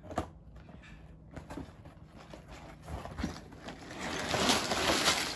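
Scissors snipping at the tape seal of a cardboard LEGO box, a few sparse clicks, then the box being pulled open, with cardboard scraping and the plastic parts bags inside rustling, growing louder and busiest near the end.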